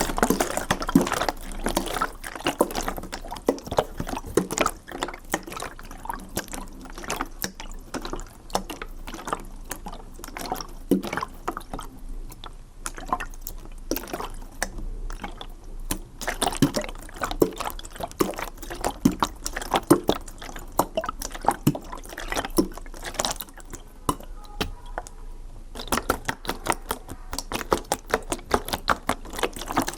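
Water bubbling and dripping: a dense, irregular run of small pops and drips that thins briefly about three-quarters of the way through.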